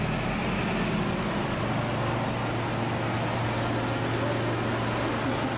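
Medium-duty truck engine running with a steady low drone as the truck drives slowly past, over general street traffic noise.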